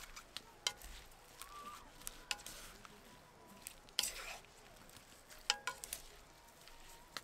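Scattered light clicks and knocks of cooking utensils and dishes being handled while food is prepared for the griddle, with a brief scraping rustle about four seconds in.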